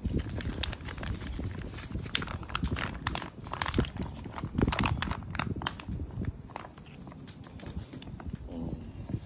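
Live oak wood fire crackling and popping irregularly, with a low rumble underneath.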